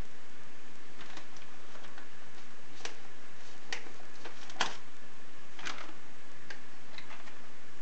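Plastic DVD cases clicking and tapping against each other as they are picked up and handled: a series of irregular sharp ticks, the loudest about halfway through.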